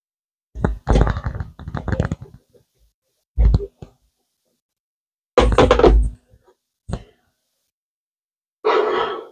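Glass top plate of a Bambu Lab X1C 3D printer being worked into place on 3D-printed riser pieces: irregular clusters of knocks and taps as the glass bumps against the risers and the bench, the loudest about five and a half seconds in.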